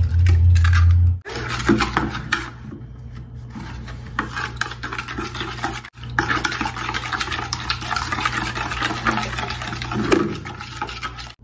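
An egg being beaten into a liquid yeast-and-sugar mixture in a plastic mixing bowl: quick, continuous scraping and clicking of a utensil against the bowl, with the liquid sloshing. A loud low rumble in the first second is the loudest sound.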